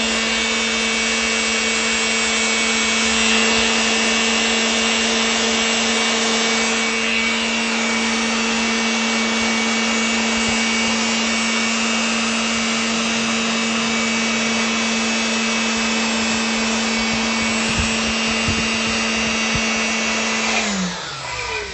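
A high-speed electric motor runs steadily with a constant whine over a loud hiss. Near the end it is switched off, and its whine falls in pitch as it spins down.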